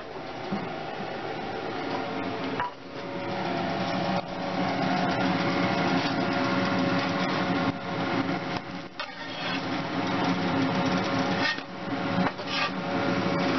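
A pancake cooking in a nonstick frying pan on an electric stove: a steady hiss with a steady hum underneath, and a few light knocks.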